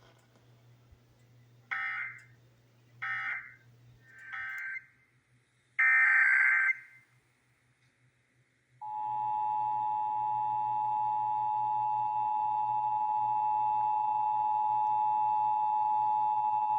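Emergency Alert System signalling: three short screeching digital data bursts (SAME code) a little over a second apart, then a longer burst about six seconds in. About nine seconds in, the steady two-tone EAS attention signal (853 and 960 Hz together) starts sounding.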